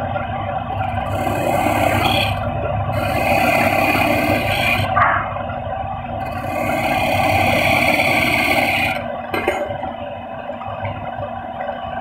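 Hand-held steel scraper cutting the face of a wooden disc spinning on a belt-driven lathe: three long scraping strokes, the last ending about nine seconds in, over the steady hum of the lathe's drive.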